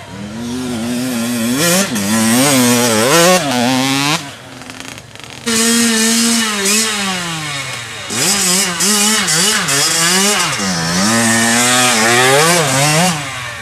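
Small youth dirt bike engines revving hard on a wooded trail climb. The pitch rises and falls as the throttle is worked, with a brief quieter dip about four seconds in.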